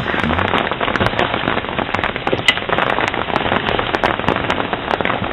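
Feet scuffling and crunching in snow as two people grapple: a dense, irregular run of crackles and clicks.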